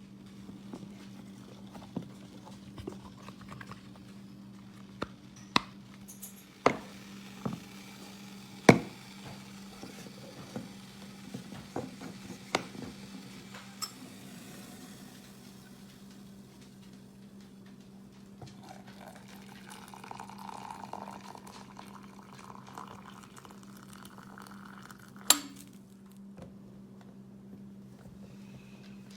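Handling of a plastic single-cup coffee maker and cup: scattered clicks, taps and a few sharper knocks, the loudest about nine seconds in and again near the end, over a steady low hum.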